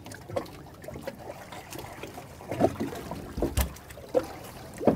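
Water trickling and lapping against the hull of a drifting fishing boat, with several short sharp knocks on deck, the loudest about halfway through and near the end.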